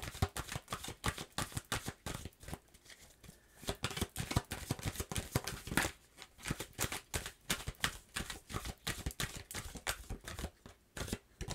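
A deck of tarot cards being shuffled by hand, a fast run of soft card flicks and slaps, with a short pause about three seconds in.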